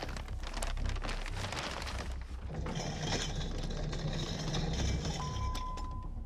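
White granules pouring from a paper sack into a metal tub, a dense crackling patter for the first couple of seconds. It gives way to a steadier hiss over a low hum, with a brief high steady tone near the end.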